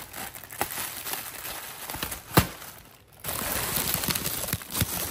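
Plastic wrapping being handled, crinkling and crackling in quick little clicks, with one sharp knock about two and a half seconds in and a short lull just after it.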